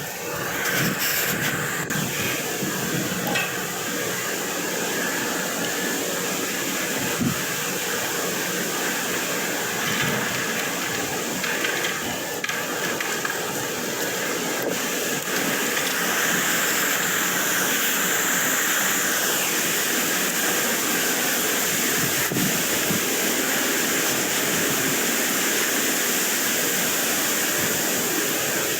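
Steady rushing hiss of wind blowing across the microphone. A fainter higher whine swells about sixteen seconds in and fades a few seconds later.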